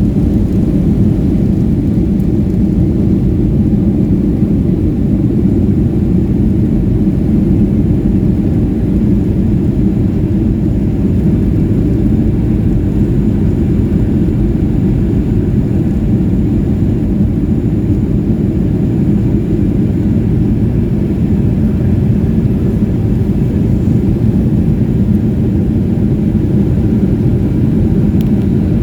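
Jet airliner's engines and airframe heard from inside the cabin during takeoff: a loud, steady low rumble.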